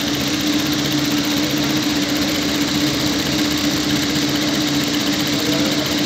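Industrial lockstitch sewing machine running at a steady speed with an even hum, stitching fabric through a P952 gathering foot so that the cloth gathers as it feeds.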